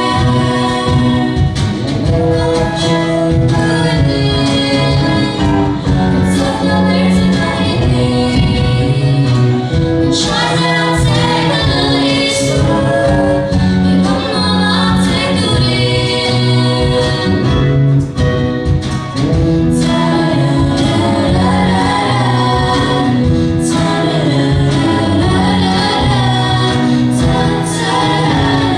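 A choir singing a song, several voices together holding sustained notes that change like a melody.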